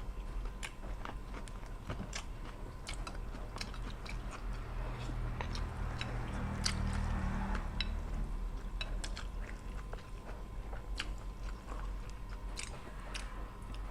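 A person chewing fish cake and rice noodles close to the microphone, with many short, sharp wet mouth clicks scattered throughout.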